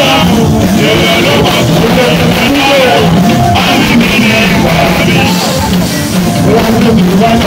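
Loud music with singing.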